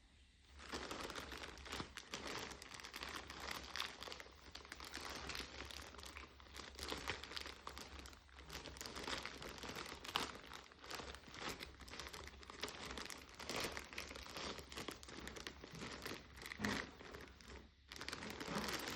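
Packaging being torn open and handled, with irregular crinkling and rustling and occasional tearing.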